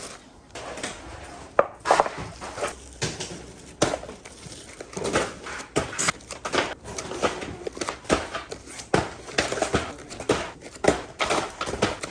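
Irregular clicks, knocks and rustling of objects being handled, some sharp and loud, without a steady rhythm.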